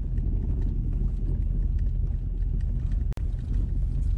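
Steady low rumble of a vehicle heard from inside the car's cabin, with a split-second dropout about three seconds in.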